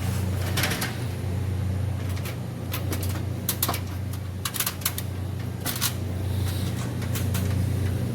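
Walk-in freezer compressor running with a steady low hum, freshly started after short-cycling on low pressure, with scattered sharp clicks and rattles over it.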